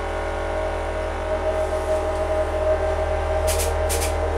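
Hydraulic press's electric pump motor running steadily with a low hum and a whine. Near the end come a few short, sharp high-pitched crackles as the press works on the silver play button.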